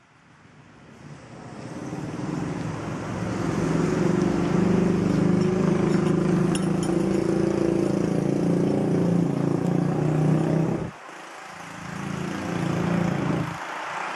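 A steady engine hum that fades in over the first few seconds, cuts off suddenly about eleven seconds in, then comes back more quietly before dropping again near the end.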